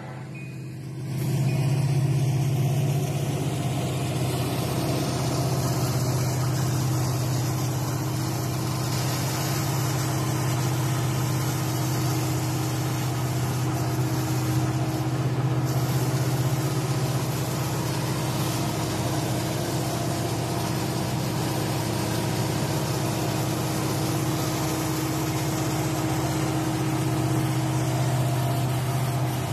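Union Pacific diesel locomotive's engine running in a steady, deep drone as the unit rolls alongside. It rises to full strength about a second in and then holds evenly.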